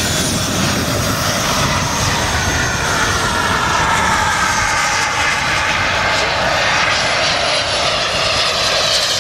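Miniature gas-turbine engines of a large-scale RC model jet whining as the jet taxis on grass, the whine sagging in pitch midway.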